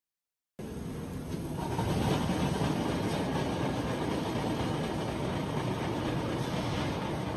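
Forging-shop machinery on a steel-bar feeding line running: a steady, mostly low machine noise with faint knocks throughout. It starts abruptly about half a second in and grows a little louder over the next second or so.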